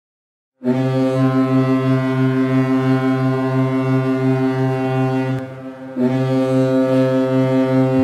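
Large ship's horn sounding a deep, long blast with a slight regular wobble. The blast breaks off about five seconds in, and the horn sounds again about half a second later.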